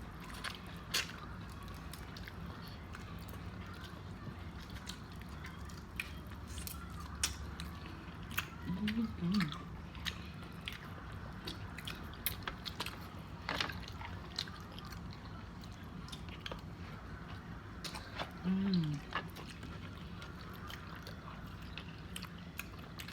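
Close-up eating of a seafood boil: chewing and wet, saucy squishing, with many scattered sharp clicks and cracks from crab-leg shells and shrimp being broken open. Two short murmurs come about a third and three quarters of the way through.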